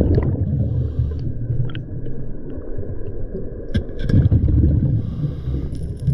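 Muffled low rumble of a scuba diver's exhaled regulator bubbles heard through an underwater camera housing, swelling at the start and again about four seconds in, with a few faint clicks.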